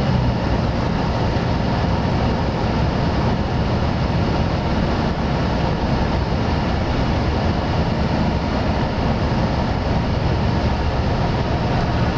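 Steady road noise inside a moving vehicle's cabin at highway driving: engine hum under a constant rush of tyres and wind, with no sudden events.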